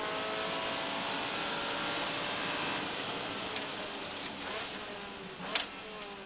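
Ferrari 360 Challenge's V8 engine heard from inside the car over road and tyre noise, its note slowly falling as the car slows for a chicane. A brief sharp knock comes about five and a half seconds in.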